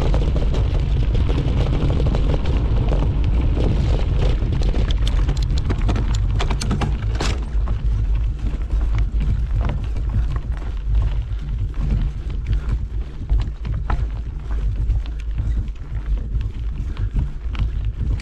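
Wind buffeting the microphone of a camera riding on a mountain bike descending a rough trail, a deep steady rumble, with the bike's rattles and the knocks of tyres over stones throughout, more distinct in the second half.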